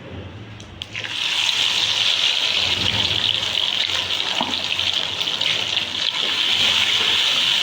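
Water running steadily from a kitchen tap, turned on about a second in after a couple of clicks.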